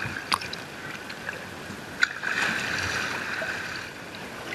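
Sea water lapping and splashing around a skin-on-frame kayak under way, with a sharp knock about two seconds in.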